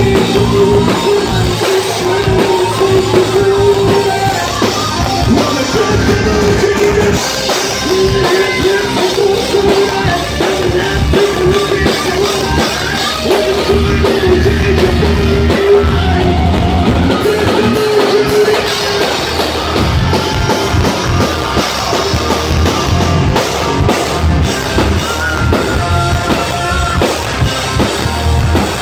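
Live rock band playing loud: drum kit, distorted electric guitars and a singer.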